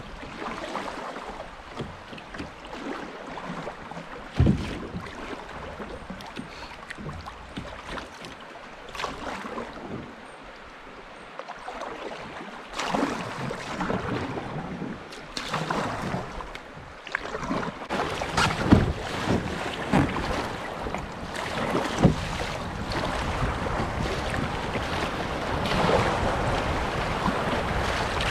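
Kayak paddle strokes dipping and splashing in a flowing river, over rushing water and wind on the microphone. The water grows louder in the second half as the kayak runs into faster, broken white water.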